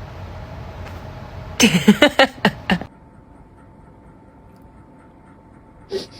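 A kitten hissing, then a quick run of about six sharp, pitched spits and growls lasting around a second. After that there is only a faint steady hum and one click near the end.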